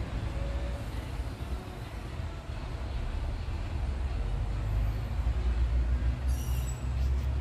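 Steady low rumble of outdoor vehicle traffic, with a brief high-pitched squeal about six seconds in.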